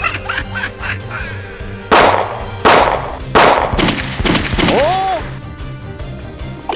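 Background music with a steady beat, overlaid with cartoon sound effects: three sudden loud noisy hits in quick succession, then a short comic sliding-pitch sound.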